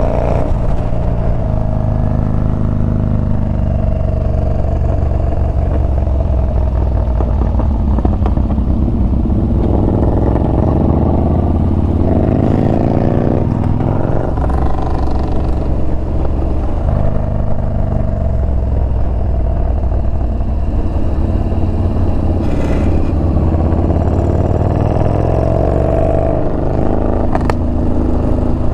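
Yamaha Bolt's air-cooled V-twin engine running under way, its revs rising and falling again and again through the turns.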